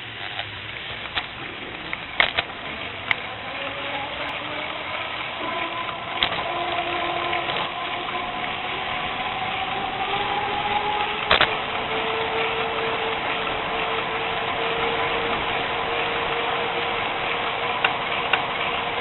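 Steady rolling and wind noise of a bicycle moving along an asphalt path, with a hum of road traffic. A humming tone slides slowly down in pitch, then holds steady from about halfway, and a few sharp clicks and knocks come from bumps in the path.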